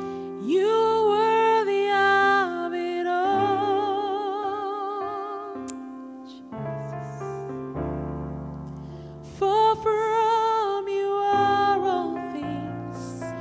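A worship song: a singer holding long, wavering notes over sustained keyboard chords. The voice drops out for a few seconds in the middle while the keyboard plays on, then comes back.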